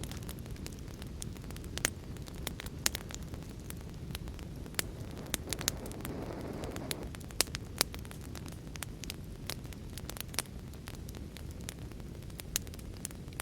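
Fire crackling: irregular sharp pops and snaps over a steady low rumble of flames, with a brief swell in the flame noise about six seconds in.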